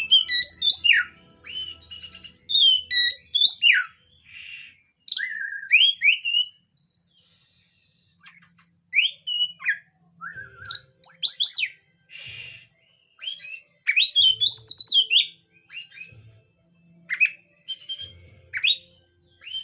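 Oriental magpie-robin (kacer) singing: a varied run of loud, clear whistled phrases with quick rising and falling sweeps, broken by short pauses and a few harsh, raspy notes.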